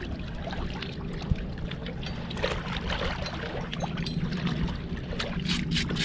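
Shallow seawater trickling over a rocky shore, over a steady low hum. Near the end comes a quick run of small crackles as a sea urchin's shell and spines are broken open by hand.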